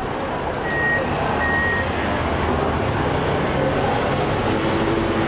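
City street traffic noise, steady and fairly loud, from cars and vans passing. About a second in come two short high beeps, one after the other.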